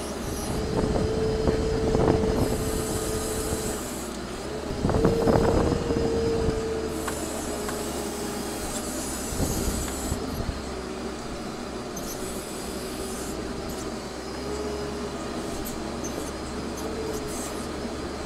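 Compact wheel loader working from inside the cab: the engine runs with a steady whine that comes and goes while its combo bucket rips a salt cedar apart. Branches crack loudly about two seconds and five seconds in, and there are spells of brushy scraping.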